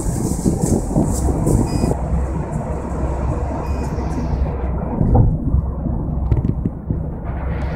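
Taxi cabin noise at highway speed: steady low rumble of the engine and tyres on the road.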